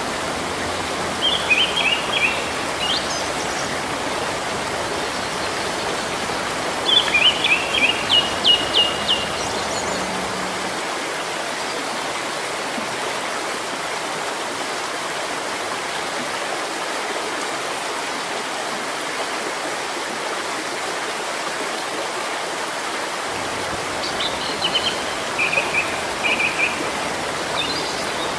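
Steady rain falling on leafy trees. A bird chirps in short runs of quick high notes three times: about two seconds in, from about seven to nine seconds, and again near the end.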